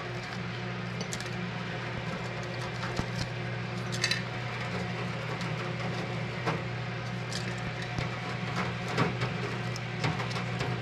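Light taps, clicks and rustles as dried apricot halves are picked off a wire-mesh dehydrator tray, over a steady low hum.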